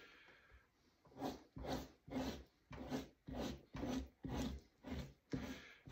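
A knife scraping flesh and fat off a beaver hide stretched over a wooden fleshing beam. The rasping strokes start about a second in and come steadily, about two a second, ten in all.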